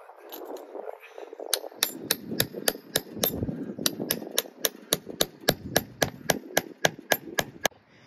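Hammer driving a fence staple into a wooden fence post: a fast, even run of about two dozen sharp strikes, roughly four a second, starting about a second and a half in.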